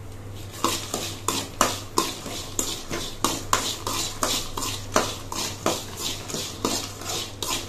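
A slotted steel spoon clinks and scrapes against a metal kadai, about three strikes a second, as peanuts are stir-fried with curry leaves.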